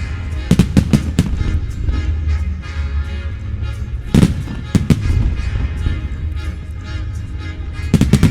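Fireworks bursting in clusters of sharp bangs over loud music with a heavy bass: about four bangs in quick succession about half a second in, two or three more around four to five seconds, and another quick cluster near the end.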